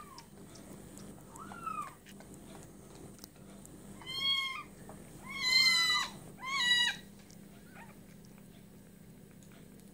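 Very young bottle-fed kitten mewing: a faint cry near the start and another just before two seconds in, then three loud, high-pitched mews in quick succession around the middle.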